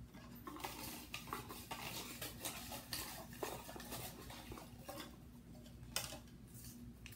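Slips of paper rustling and clicking against a cup as they are stirred around and one is drawn out, a rapid run of light ticks and rustles with one sharper click about six seconds in.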